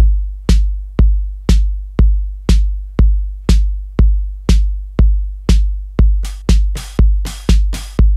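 Electronic drum pattern from a Native Instruments Maschine+ groovebox, looping at about two beats a second: a kick on every beat with a long booming low tail, sharper brighter hits on every other beat, and from about six seconds in extra quicker hits filling in between the beats.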